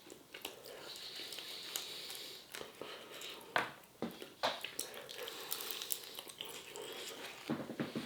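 A person chewing and biting a crispy-skinned, oven-baked chicken wing: irregular small crunches and mouth clicks, the sharpest about three and a half and four and a half seconds in.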